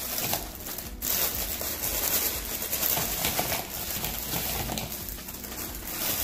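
Mixed vegetables being poured from a crinkling plastic bag into a bowl, with many small clicks as the pieces land.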